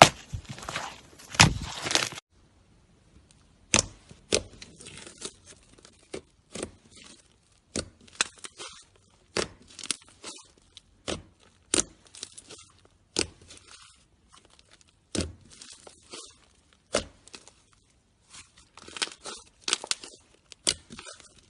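Homemade slime being squeezed and stretched by hand: a dense squishing for the first two seconds, then irregular sticky pops and crackles, one or two a second.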